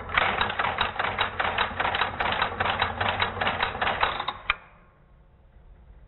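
Strowger step-by-step (SXS) selector stepping its shaft up ten levels as a rotary dial returns from dialing 0: the vertical magnet's armature and pawl clack against the ratchet in an even run of about twenty sharp clicks, some five a second, stopping about four and a half seconds in.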